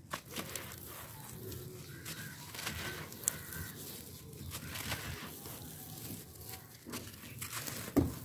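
A hand crumbling a dry, gritty slab of grey sand: irregular crunching and crackling as grains break and trickle away, with a louder crunch near the end as a chunk breaks off.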